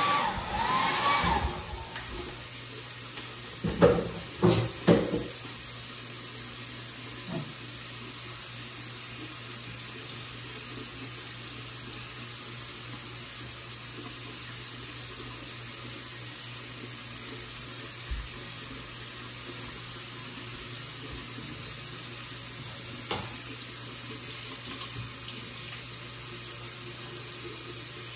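A small electric appliance's motor whine falls away as it is switched off in the first second or two, followed by a few knocks about four seconds in. Then a tap runs steadily into a sink.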